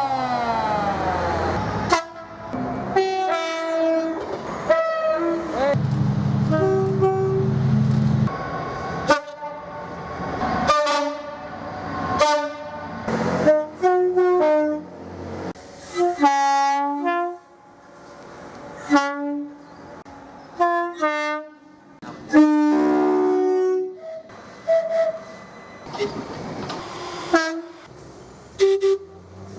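Train horns sounding a long run of short multi-tone blasts in quick succession, switching between high and low notes, with a low rumble underneath for a couple of seconds near the start.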